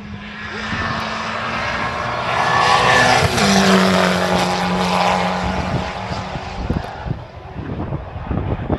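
Race car engine passing at speed on the hill road. The engine note builds, is loudest about three to four seconds in, drops in pitch as the car goes by, and then fades away. Near the end there are gusts of wind on the microphone.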